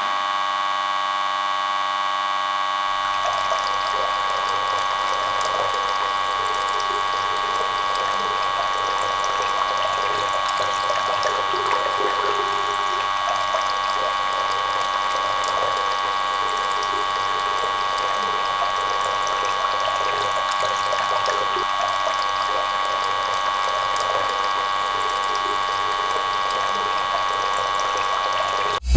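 A small motorised mechanism running steadily with an even whine, with light rattling over it from about three seconds in.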